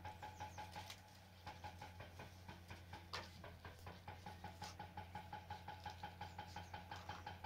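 A motor running faintly: a steady low hum with a light regular ticking, about four or five ticks a second. A single short click comes about three seconds in.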